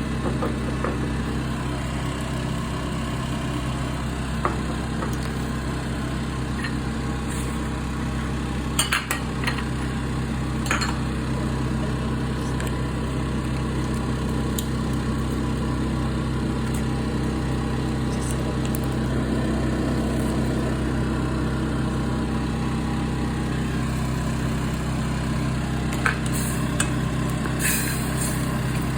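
A steady low mechanical hum throughout, with a few scattered sharp clinks of cookware: a handful near the middle and several more near the end.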